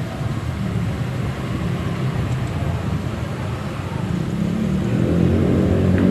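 Low rumble of a motor vehicle's engine, with a pitched engine hum growing louder over the last two seconds.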